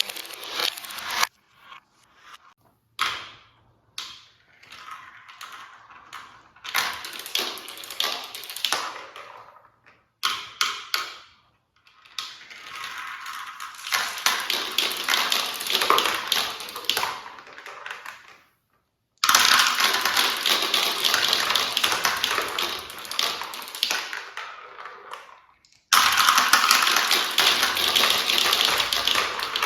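Marbles rolling and clattering down a plastic marble run track, a dense rattle of rapid clicks. The rattle comes in separate runs that stop abruptly several times, most clearly about 18 seconds in and again near 26 seconds.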